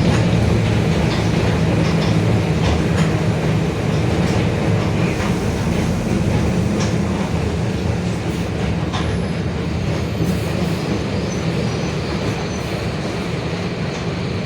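Mercedes-Benz OF-1721 city bus on the move: a steady low drone from the diesel engine and drivetrain, with the differential growling, and scattered rattles and clicks from the body. The drone gradually gets quieter.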